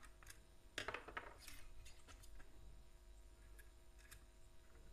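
Faint clicks and taps of hands handling a plastic electrical switch board and its copper wire, with one sharper tap about a second in.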